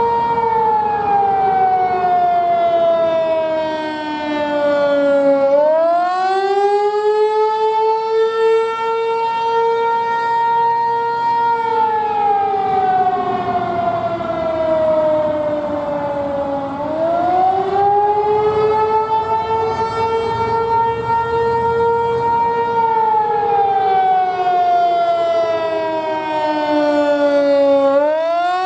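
Outdoor civil-defense warning siren sounding during a test, loud and steady: its pitch holds high for several seconds, slides slowly down, then sweeps quickly back up, in a wail that repeats about every eleven seconds.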